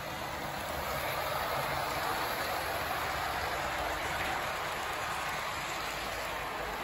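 Electric model train running around its track: a steady rolling hiss of wheels on rail with the locomotive's motor, swelling a little for a few seconds in the middle.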